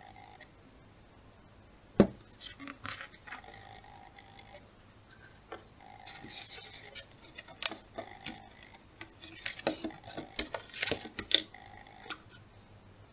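Paper plates and a squeeze bottle of glue being handled on a tabletop: one sharp knock about two seconds in, then scattered light taps, clicks and paper rustling as plates are moved and stacked.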